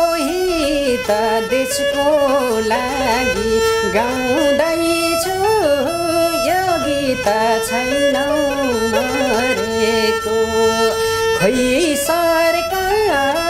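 Nepali sarangi, a small bowed folk fiddle, played in a folk melody while a man sings along. The line slides and turns in ornaments, now and then settling on one steady held note.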